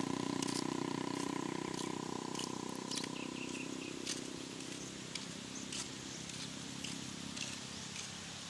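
A steady motor hum that fades away over the first few seconds, with scattered light clicks.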